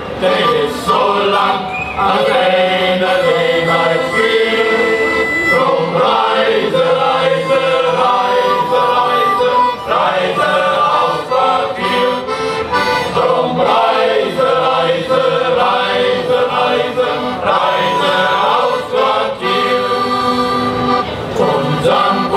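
Shanty choir of men's voices singing a sea shanty to accordion accompaniment.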